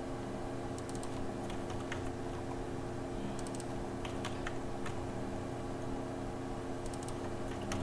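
Computer keyboard keystrokes and clicks, a few scattered taps over several seconds, with a steady low hum underneath.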